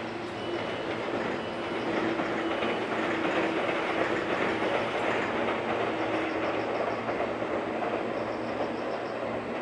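Light-green JR West 103 series electric commuter train running across a steel girder railway bridge: a steady rumble of wheels on rail and bridge that grows louder about two seconds in and stays loud as the train passes.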